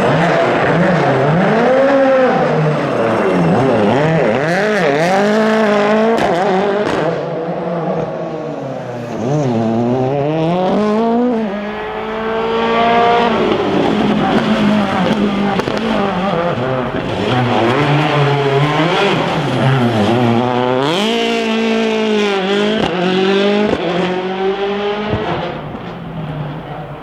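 World Rally Car's turbocharged four-cylinder engine revving hard, its pitch rising and dropping over and over as it is driven through the gears.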